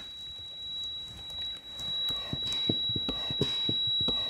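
Airway suction machine running with a steady high whine while a catheter clears secretions from a tracheostomy. From about two seconds in there are irregular clicks and rattles. Suctioning keeps the airways clean to avoid pneumonia.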